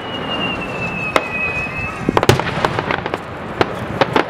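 Aerial fireworks bursting: a run of sharp bangs and crackles, thicker after about two seconds. A high whistle slowly falls in pitch through the first two seconds.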